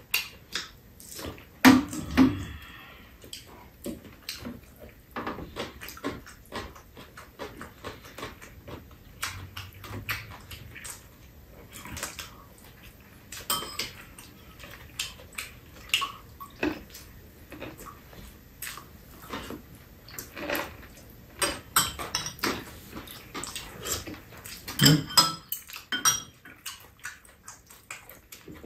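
Steel chopsticks and spoons clicking and clinking against bowls, a mug and a metal serving tray in a run of irregular light knocks, with chewing between them.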